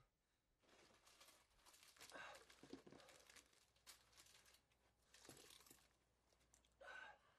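Faint rustling and handling noises as things are rummaged through, in several spells, with a short louder one near the end.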